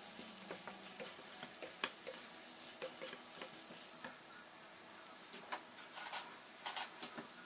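Food cooking in a pan with a faint sizzle, while a utensil stirs it with scattered light taps. A few louder scrapes come near the end.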